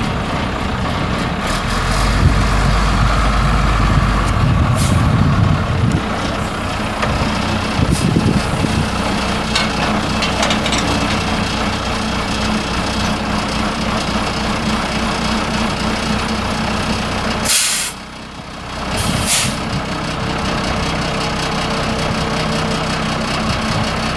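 International DT466 7.6-litre inline-six turbo diesel of a dump truck running steadily while the dump bed is lowered. Near the end come two short hisses of air about a second and a half apart, and the engine sound drops briefly after the first.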